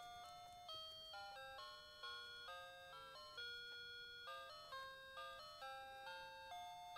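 Quiet background music: a simple melody of pitched notes, each starting sharply and fading, several to a second.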